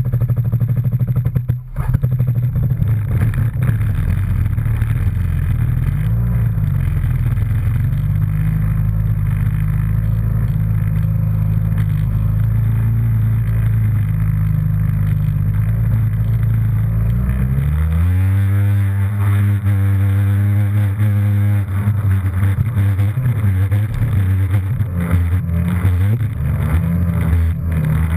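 Jet ski engine running steadily, then revving up about two-thirds of the way through and holding a higher pitch, with water splashing.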